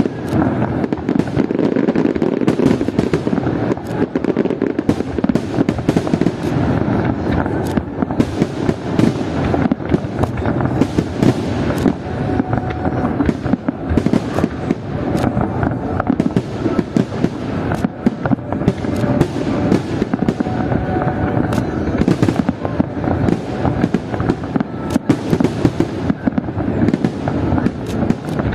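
Fireworks display: a continuous rapid barrage of bangs and crackling bursts with no letup.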